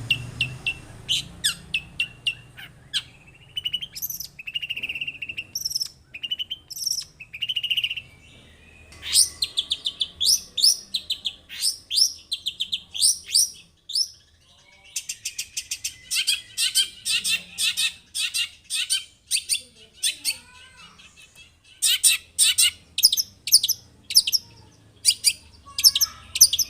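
Long-tailed shrike (cendet) in full song: a varied run of whistled and slurred notes, then long fast runs of sharp chirps repeated several times a second.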